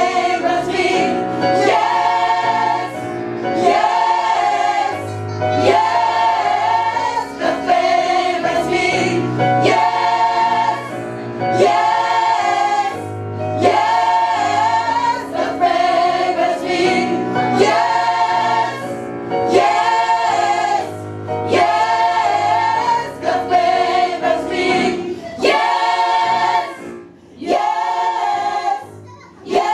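Gospel choir singing live, repeating a short phrase about every two seconds over a low bass line.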